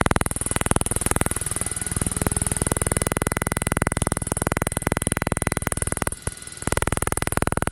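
Electromagnetic interference from a switched-on DJI Mavic Pro drone picked up by the camera's audio: a rapid, evenly pulsing electronic buzz with a steady high whine on top, a sound not heard by ear in the room. It drops out for a moment about six seconds in.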